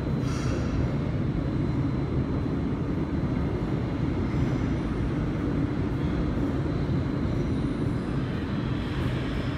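Refurbished resistor-controlled Seoul Metro Line 1 electric train rolling into an underground station, a steady rumble of wheels and running gear. There is a brief high squeal about half a second in.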